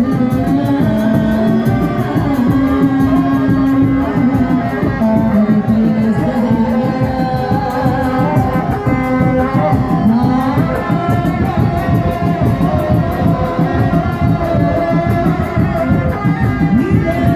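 Kuda lumping accompaniment music: a dense, driving drum beat under a sung melody with long held notes.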